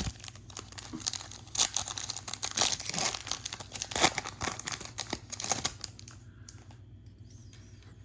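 Foil wrapper of a Topps Chrome baseball card pack being torn open and crinkled, a dense crackling that dies down about six seconds in.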